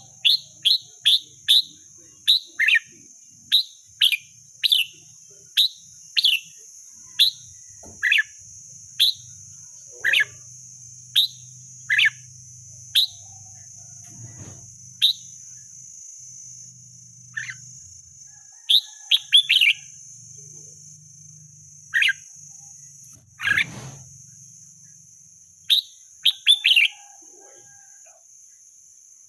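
Wild red-whiskered bulbul calling: short, loud, down-slurred notes, about two a second at first, then more spaced out. A steady high-pitched buzz continues underneath.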